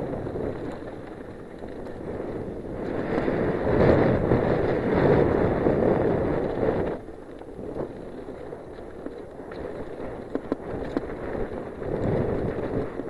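Wind rushing over the camera's microphone and the tyres of a Giant Glory downhill mountain bike rolling fast over a dry dirt trail. The rush swells for a few seconds, drops suddenly about seven seconds in, then goes on more quietly with scattered clicks and rattles before swelling again near the end.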